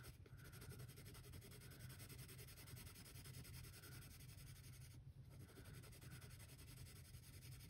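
Faint scratching of a Prismacolor 8B woodless graphite pencil shading on sketchbook paper, pressed hard at first and then eased off into a lighter gradient.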